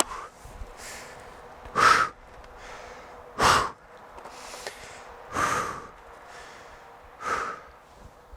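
A man breathing hard, winded from chopping a log with an axe: four loud, heavy breaths about two seconds apart, with quieter breaths in between.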